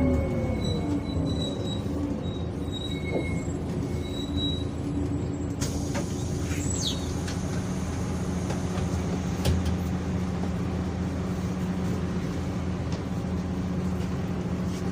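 Mercedes-Benz O345 city bus's diesel engine winding down, its pitch falling, then running at a steady speed with a constant hum. A short high squeal falls in pitch about seven seconds in, and there is a single knock near ten seconds.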